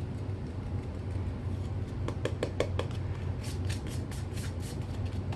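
Baking soda being scraped and rubbed into pile carpet with a small plastic tool: a few short scratchy strokes about two seconds in, then a quicker run of strokes a little later, over a steady low hum.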